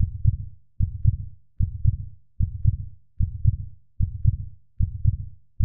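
Heartbeat sound effect: steady lub-dub double thumps, one pair about every 0.8 seconds.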